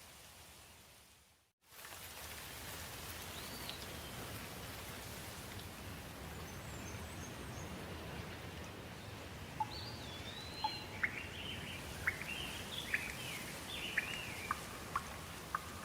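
Steady rain hiss that fades out to a brief silence about a second and a half in, then resumes. Birds chirp in short rising and falling calls, mostly in the second half, with a scatter of sharp ticks among them.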